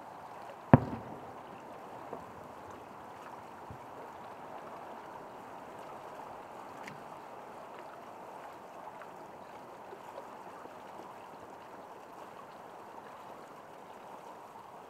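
One loud firework boom about a second in, with a trailing rumble, followed by a couple of fainter thumps, over a steady background hiss.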